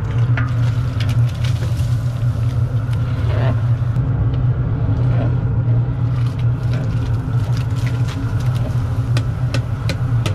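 Propane burner under a large stew kettle running with a steady low rumble, with scattered light clicks as cans of lima beans are emptied into the boiling pot.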